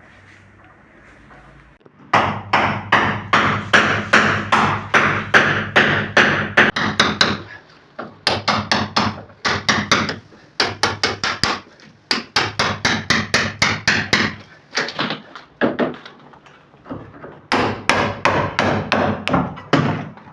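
Rapid hammering, about four sharp blows a second in runs of several seconds with short pauses between them, starting about two seconds in.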